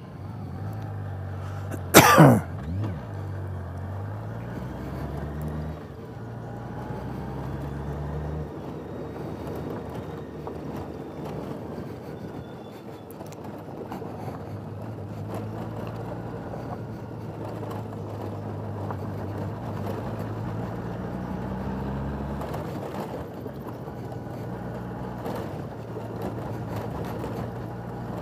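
Motorcycle engine running under way, its pitch climbing and dropping back a few times with throttle and gear changes. A loud sharp knock about two seconds in.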